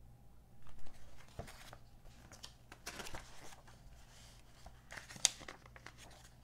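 Glossy pages of a softcover magazine being turned and handled: paper rustling and crinkling in several short bursts, with a sharp tick about five seconds in.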